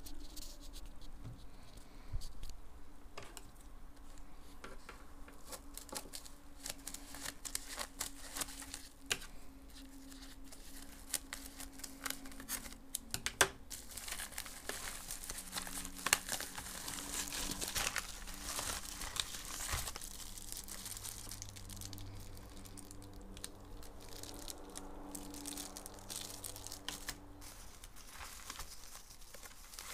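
Plastic courier mailer bag crinkling and tearing as it is handled and opened by hand, a long run of rustles and sharp crackles.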